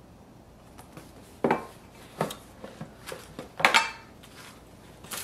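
A cardboard gift box being handled and set down on a table: a handful of short knocks and taps, the loudest about three and a half seconds in.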